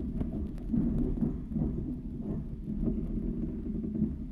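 Inside a carriage of an ED4M electric multiple unit moving slowly: a steady low rumble from the running gear, with a few faint clicks.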